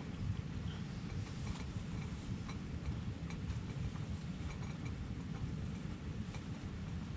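Steady low rumble with faint, scattered light clicks and taps as a laptop is opened and its keys are pressed.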